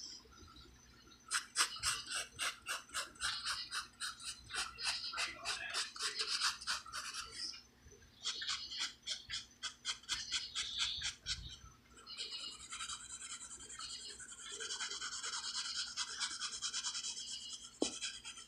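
A wooden pencil scratching on paper in quick back-and-forth shading strokes, several a second. The strokes come in runs broken by two short pauses, and there is a light knock near the end.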